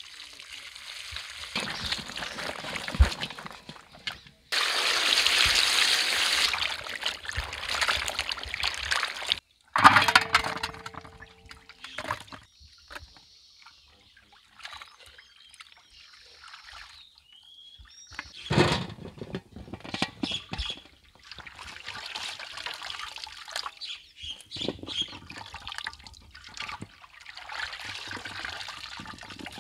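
Water pouring out of a large pot of bitter gourd onto the ground, drained past a steel plate held over the rim, loudest for about five seconds; afterwards scattered knocks and clinks of steel bowls being handled.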